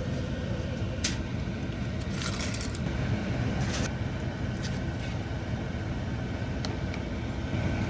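A few light clinks and clatters of cookware being handled, over a steady low rumble.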